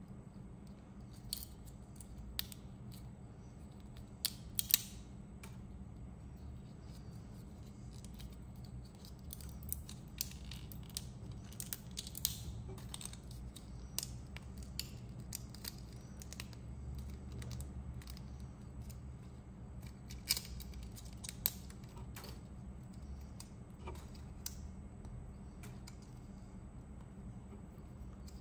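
Irregular small sharp clicks and snaps of hard 3D-printed plastic as hands work the pieces of a printed gravity-knife fidget toy, with a few louder snaps scattered through, over a low steady hum.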